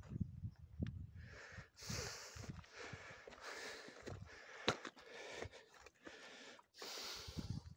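Breathing heard close to the microphone, long noisy breaths coming every second or two, with low bumps from the phone being handled.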